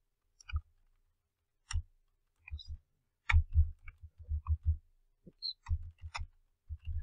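Computer keyboard being typed on slowly: a dozen or so irregular keystrokes, some in quick runs of two or three, each with a low thump.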